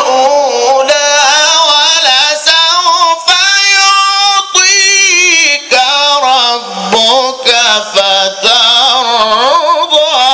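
Quran recitation in the Egyptian mujawwad style: one man's voice drawing out a long ornamented melodic run, the pitch climbing and wavering, with brief breaks between phrases.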